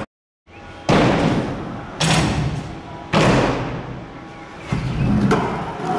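Stunt scooters hitting and rolling on skatepark ramps: a series of hard thuds about a second apart, each trailing off into rolling noise, after a brief gap at the start.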